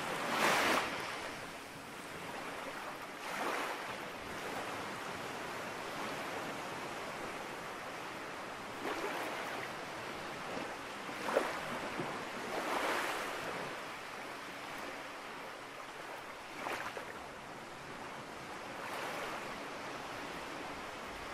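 Steady rushing noise that swells and ebbs irregularly every few seconds, with no speech or music.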